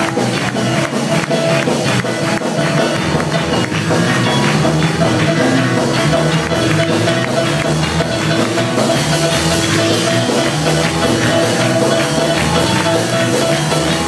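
Live church worship band playing upbeat music with a fast, steady beat.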